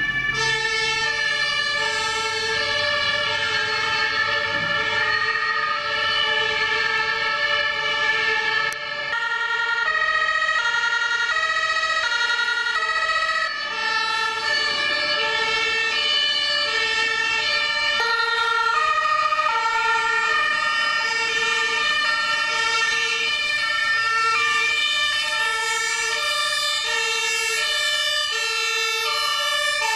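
German two-tone sirens (Martinshorn) on fire service vehicles approaching on an emergency run, alternating between a high and a low note about every 0.7 seconds. A second two-tone siren at a different pitch joins about nine seconds in, and the two overlap out of step.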